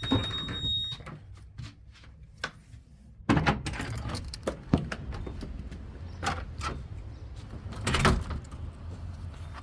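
A series of sharp knocks and clunks, with a brief high beep in the first second; about three seconds in a louder clunk starts a low steady rumble that runs on under more knocks.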